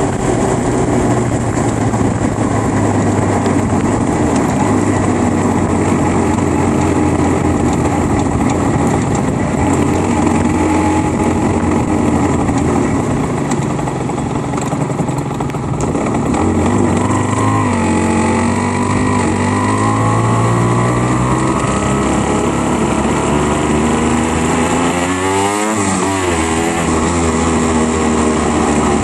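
Aprilia RS125's two-stroke single-cylinder engine running while the bike rides in slow traffic. A little past halfway the revs ease off, then climb again in rising glides, and near the end the pitch dips and rises quickly.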